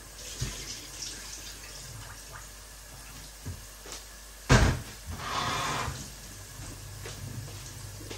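Off-camera kitchen handling: a sharp knock about halfway through, then about a second of rushing, running water, over a faint steady background.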